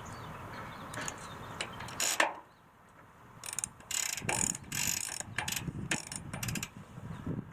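A ratchet mechanism clicking in short bursts, several a second, after a single sharp click.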